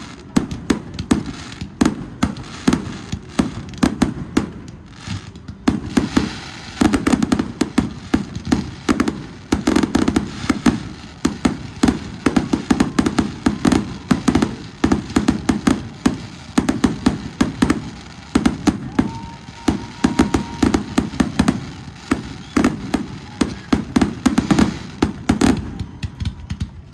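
Fireworks display: a rapid, continuous barrage of aerial shell bursts and crackling bangs, many every second.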